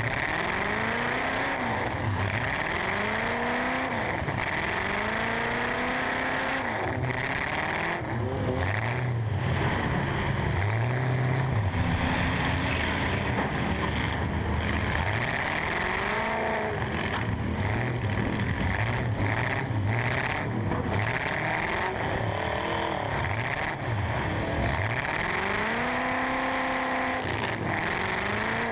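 Stock eight-cylinder large truck engine revving up and dropping back again and again, heard from inside the cab.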